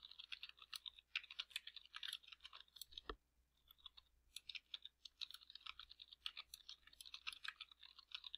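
Faint, rapid typing on a computer keyboard, with a short pause about three seconds in.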